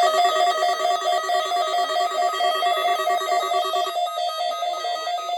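Loud electronic alert tone warbling rapidly between pitches, like a telephone trill, with a lower tone dropping out about four seconds in: the attention signal that opens an Emergency Alert System Amber Alert.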